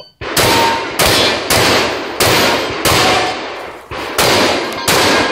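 Benelli M2 semi-automatic 12-gauge shotgun firing seven loud shots in quick succession, about half a second to just under a second apart, with a slightly longer pause before the last two.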